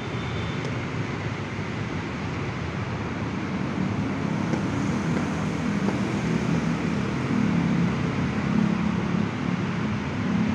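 Steady low rumble of city road traffic, swelling slightly toward the end.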